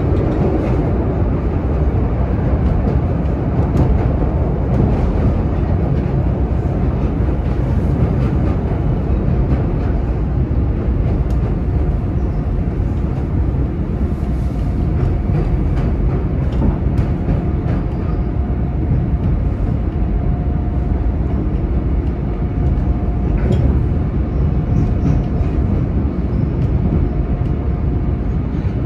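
CTA Brown Line 'L' train running, heard from on board: a steady rumble of wheels on rails. A faint, thin, steady whine comes and goes from about halfway through.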